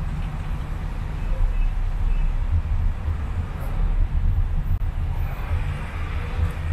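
Car driving on a wet city road: a steady low rumble with tyre hiss from the wet surface.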